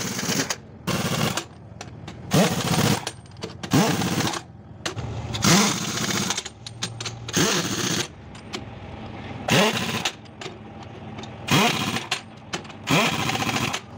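Pneumatic impact wrench hammering truck wheel nuts in about ten short bursts, one nut after another, each burst opening with a rising whine as the air motor spins up. A steady machine hum runs between the bursts.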